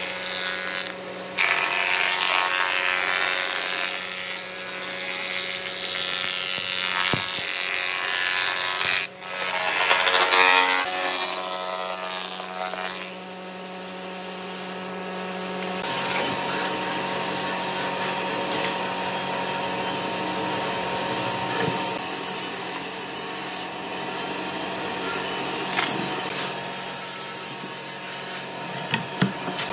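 Thickness planer running while boards are fed through, its cutter head chipping the wood; the cut swells and eases as boards enter and leave the machine. A few sharp knocks near the end.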